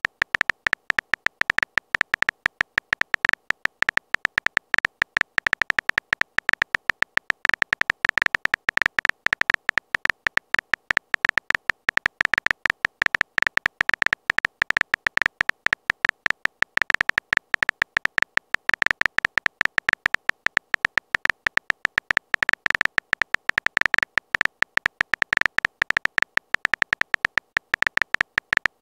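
Rapid, uneven stream of short phone-keyboard tap sounds, many a second, as a text message is typed out letter by letter in a texting app.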